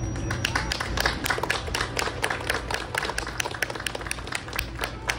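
A small group of people applauding, their hands clapping in quick, uneven strokes that begin about half a second in. A steady low hum runs underneath.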